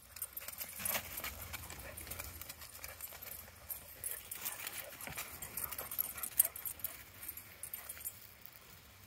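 Two small terrier-type dogs running and playing on grass: an irregular patter of paws and rustling, with a sharp tick about six and a half seconds in.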